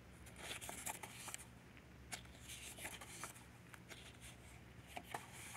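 Faint rustling of paper with a few light ticks as a stack of vintage-style ephemera papers is leafed through by hand.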